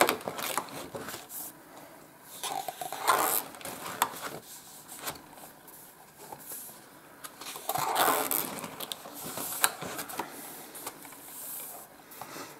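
Pages of a spiral-bound colouring book being turned and pressed flat by hand: three main paper swishes, at the start, about three seconds in and about eight seconds in, with soft rustling and light taps between.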